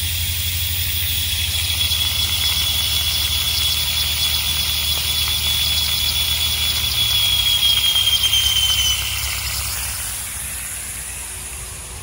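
Compressed air blowing through a drip-line irrigation system to winterize it, hissing loudly out of the emitter holes and pushing out leftover water. A high whistle sounds over the hiss, slowly drops in pitch and stops about nine seconds in; a low hum underneath fades away, and the hiss eases off toward the end.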